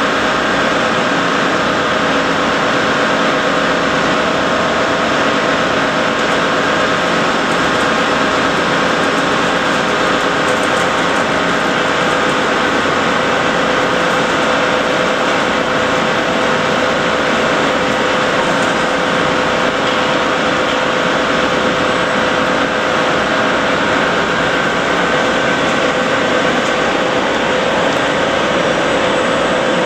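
Steady, loud drone of industrial machinery on an automated paint line, an even machine noise with a few steady humming tones running through it and no breaks.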